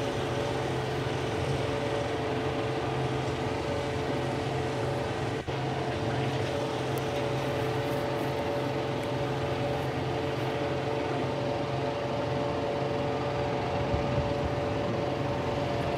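John Deere 4075R compact tractor's diesel engine and PTO-driven flex-wing mower running steadily at working speed under mowing load, a constant hum with a steady whine in it.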